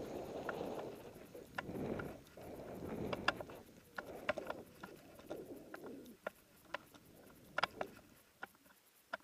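Snowboard riding through deep powder snow: a rushing swish that swells and fades with each turn, with many sharp clicks over it. The swishing dies down near the end.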